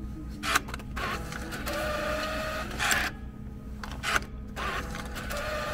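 Railway ticket vending machine taking in banknotes: its bill acceptor whirs in several short runs broken by sharp clacks.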